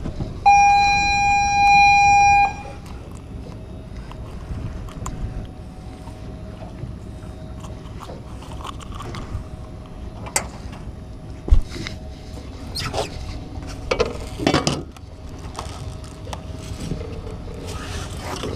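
A steady, loud, pitched tone lasting about two seconds near the start, then scattered knocks, clicks and rustling as a red snapper wrapped in a towel is handled and unhooked on a boat deck, over a steady background hiss of wind and water.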